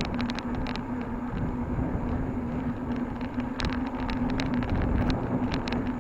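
Bicycle being ridden: a steady hum over a low rumble, with scattered sharp clicks and rattles.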